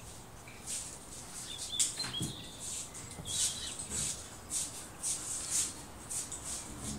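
Several pairs of children's sneakers shuffling on a smooth classroom floor in an uneven walking rhythm, with a few short high squeaks of rubber soles.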